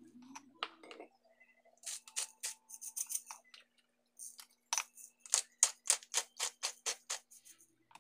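Hand-twisted stainless spice grinder grinding salt and black pepper: two runs of quick, gritty clicks. The second run is a steady series of about four clicks a second lasting some three seconds.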